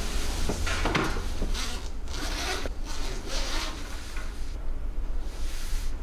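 Soft-sided mesh pet carrier being handled: a series of rough rubbing, rasping fabric sounds in the first four seconds, then quieter, over a steady low hum.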